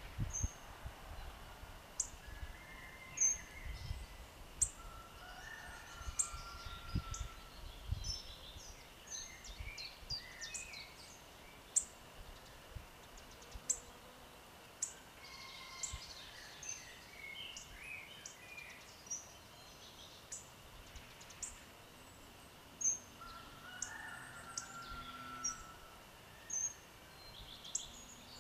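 Several wild birds singing and calling together, a steady mix of many short high chirps and whistled song phrases. A low rumble sits under the first several seconds.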